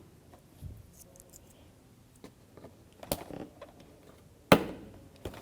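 Quiet handling noise of car door parts and tools: faint small clicks and taps, with two sharper clicks about three seconds in and about four and a half seconds in.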